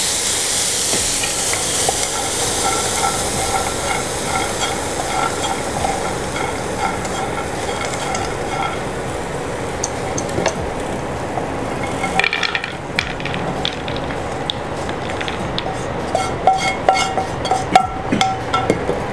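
Peanuts sizzling in ghee in a nonstick frying pan as they are stirred, just after lemon juice goes in; the sizzle stops about twelve seconds in. Then a spatula clicks and scrapes against the pan as the peanuts are tipped out onto a plate.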